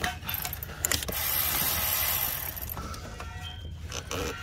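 Handling noise: a few sharp clicks, then a stretch of rustling as gloved hands reach in among the wiring harness and grab the crankshaft position sensor's plastic electrical connector.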